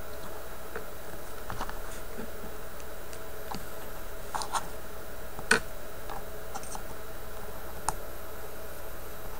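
Small plastic miniature parts clicking and tapping as they are handled and fitted onto a model figure, a few scattered sharp clicks, the loudest about halfway through, over a steady low hum.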